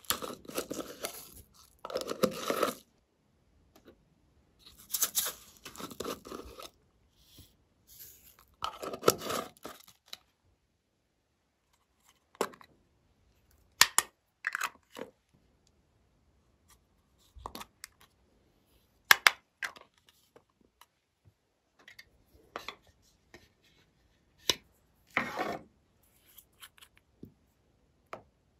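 Small plastic containers being handled and opened: lids twisted off with scraping, rustling bursts, then separate sharp clicks and snaps of plastic catches.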